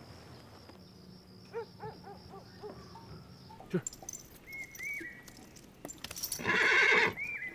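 Crickets chirp in a faint, steady, rapid trill that stops about halfway through. Then a horse gives one loud, short snort near the end, with short high calls around it.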